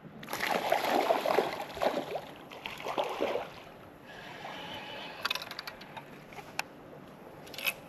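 Water sloshing and lapping against the hull of a small boat, strongest in the first few seconds, then a few sharp clicks.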